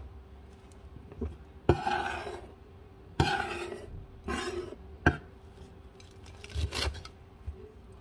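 Kitchen counter handling sounds: dishes and utensils knocking and scraping, with four sharp knocks spaced unevenly about a second and a half apart and short rustling scrapes between them, over a faint steady hum.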